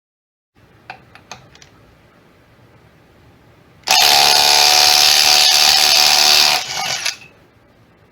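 DeWalt DCF902 3/8-inch 12-volt impact wrench, wired to run from a truck battery, running loudly for about three seconds and then winding down. A few sharp handling clicks come about a second in.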